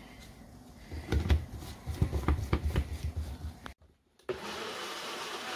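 Knocks and clatter as a small electric grinder jar is filled and fitted onto its motor base, then, after a short pause, the grinder motor runs steadily for the last second or so, chopping raw mango, chilli, salt and coriander into chutney.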